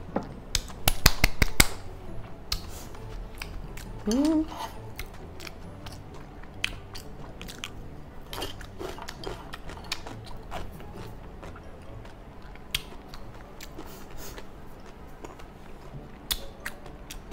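Close-miked chewing and mouth clicks of a person eating fried rice, with a quick run of sharp clicks about a second in and a short rising hum from the eater around four seconds in.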